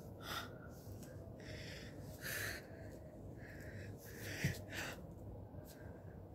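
A person exercising, breathing out hard in short puffs, about six in all. There is a soft low thud about four and a half seconds in.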